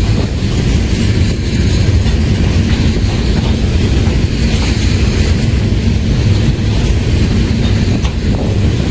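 Freight train of tank cars rolling past at close range: a steady, loud, low rumble of steel wheels on the rails.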